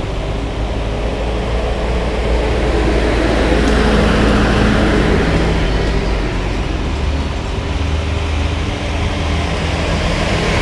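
Tractor engines running as a line of tractors drives past one after another, a low steady rumble that swells as each tractor comes close.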